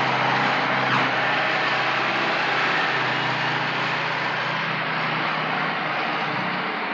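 Heavy tracked bulldozer engine running steadily: a dense mechanical noise over a low hum, easing slightly toward the end.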